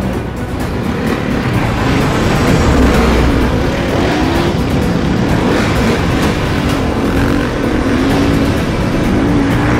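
Dirt bike engine revving hard, its pitch climbing and dropping again and again as the rider accelerates and shifts through the gears.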